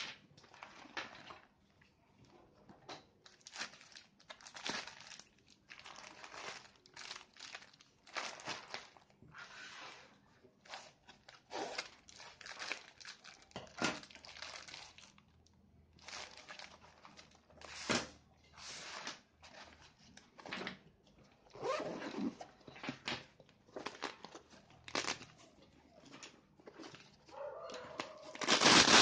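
Handling of a nylon tactical medical pouch: irregular rustling of the fabric and crinkling of plastic-wrapped bandage rolls as items are packed in and taken out, with a louder burst of rustling near the end as the front straps are worked.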